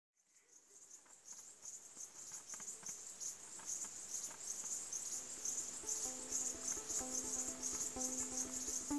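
Crickets chirping in a fast, pulsing chorus, fading in from silence. About five seconds in, soft music joins with a simple melody of low notes.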